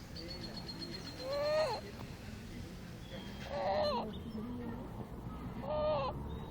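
A sleeping baby of about two and a half months snoring: three short, squeaky, pitched breaths about two seconds apart, each rising slightly and then dropping at its end.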